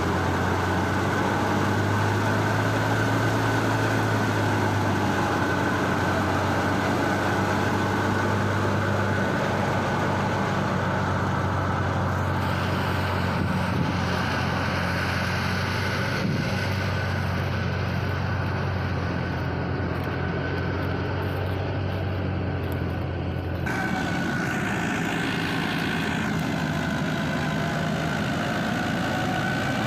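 Tractor-powered wheat thresher running steadily under the PTO drive of a New Holland Dabung 85 tractor: a deep engine drone with a constant higher whine from the threshing drum and blower. A little before three-quarters of the way through, the deep drone drops away and the whine carries on.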